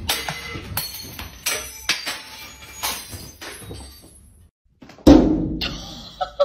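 A cat scrambling on a wooden shelf, setting off a run of knocks and clatters, then one loud, heavy thump about five seconds in.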